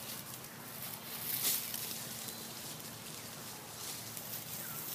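Outdoor ambience: a steady hiss, with a brief rustle about a second and a half in.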